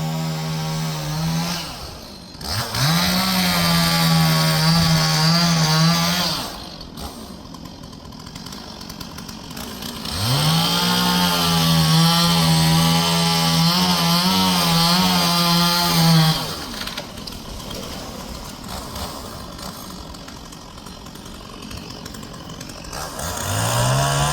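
Two-stroke chainsaw cutting trees during hinge cutting and timber stand improvement. It revs up to full throttle and holds there for several seconds at a time, dropping back to idle between runs, with two long runs in the middle and another rev near the end.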